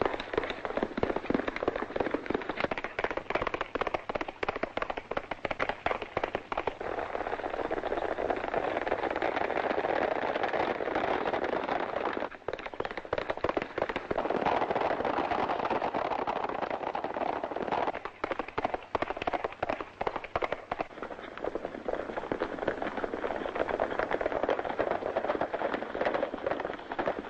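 Horses galloping, a dense rapid clatter of hoofbeats that continues throughout.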